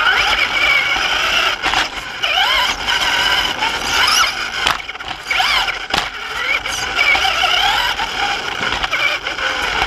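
Onboard sound of a Traxxas Slash RC truck's electric motor and drivetrain whining, rising and falling in pitch as the throttle changes. A few sharp knocks are mixed in.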